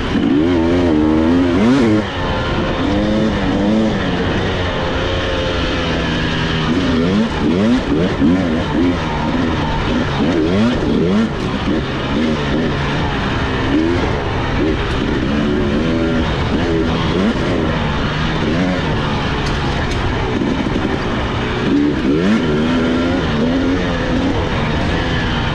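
Husqvarna TE300i two-stroke dirt bike engine being ridden, its pitch rising and falling again and again as the throttle opens and closes, over a steady rushing noise.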